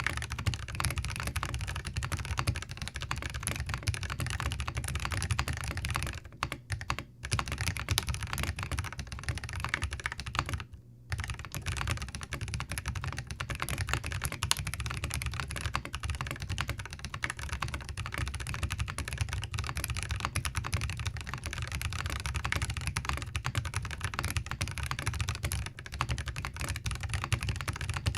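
Fast, continuous typing on a Zoom TKL mechanical keyboard fitted with Boba U4T tactile switches: a dense patter of keystrokes, broken by brief pauses about six to seven seconds in and again about eleven seconds in.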